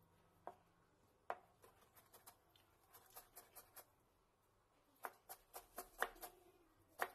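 Chef's knife chopping carrot on a plastic cutting board: scattered sharp taps at first, then quicker runs of chops around three seconds in and again from about five seconds.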